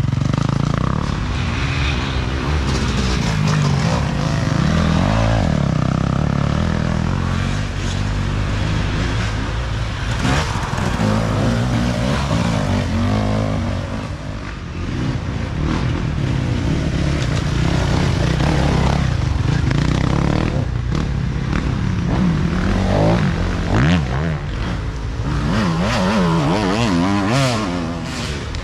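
Off-road racing dirt bikes revving hard as they pass one after another, the engine pitch rising and falling with the throttle.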